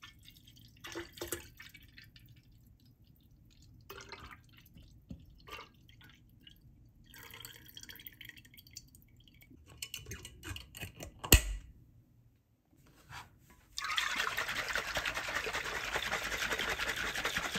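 A milk-and-cream mixture poured in a thin stream into a swing-top glass jar of lemon-infused alcohol, with faint drips and one sharp clink partway through. In the last few seconds the jar is swirled and the liquid sloshes loudly and steadily inside it.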